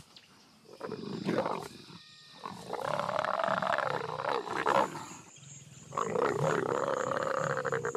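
Leopards growling during mating: a short growl about a second in, then two long, drawn-out growls.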